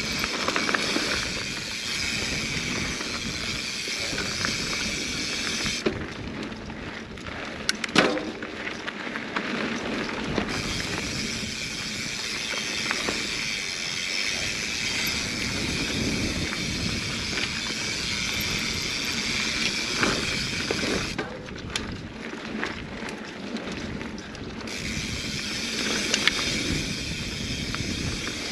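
Mountain bike rolling fast down a dirt singletrack: tyres crunching over dirt and the bike rattling over bumps, with a sharp clatter about eight seconds in. A high steady buzz runs under it and cuts out twice for a few seconds at a time.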